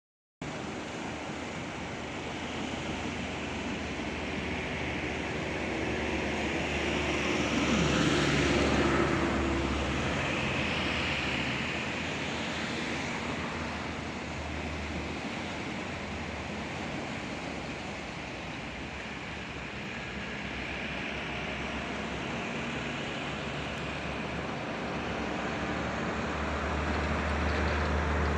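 Sea surf washing on a beach, with steady wind noise rumbling on the microphone. About eight seconds in, the sound swells as a passing engine goes by, its pitch falling.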